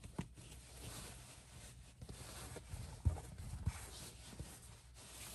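Soft rustling of a wool ponte knit fabric being handled and shifted on a table, with a few soft low thumps, the loudest about three seconds in.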